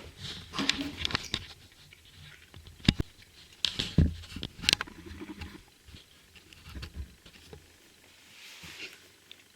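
Handling noises of unboxing: rustling with scattered sharp clicks and knocks, the loudest three falling between about 3 and 5 seconds in.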